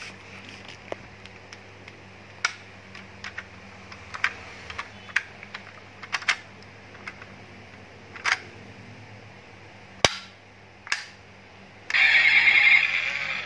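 A series of sharp clicks as the doors, hood and roof parts of a small diecast metal toy car are snapped shut one after another. About twelve seconds in, a much louder raspy burst starts as the toy is pressed down and set going.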